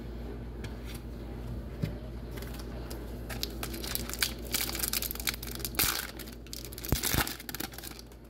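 Foil wrapper of a hockey card pack crinkling and tearing as it is handled and opened, with irregular crackles that grow denser and sharper through the middle and latter part.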